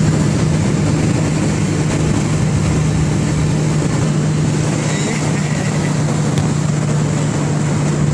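Cars cruising at motorway speed: a steady engine drone held at one pitch, under a constant rush of tyre and wind noise, heard from inside a moving car.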